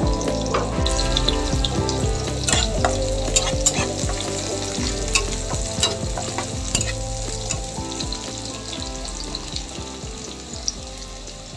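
Sliced onion and garlic frying in hot oil in a black wok: a steady sizzle with scattered sharp crackles as they are stirred. The sizzle grows gradually quieter toward the end.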